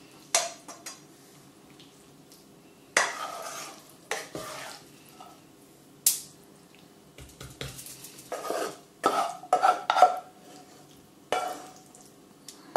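A spoon scraping and knocking against a frying pan as cooked mince filling is scooped out of it, in short, irregular strokes that come thickest near the end.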